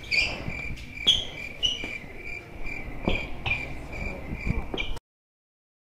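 Crickets chirping, a high chirp repeating about two or three times a second, used as the comic sound effect for an awkward silence. It cuts off suddenly about five seconds in.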